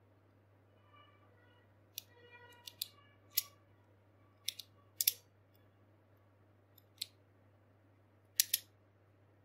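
Hard plastic parts of a Beyblade Burst top clicking as they are twisted and pressed together in the hands: about a dozen short, sharp clicks, several in quick pairs, with a faint squeak of plastic rubbing in the first few seconds.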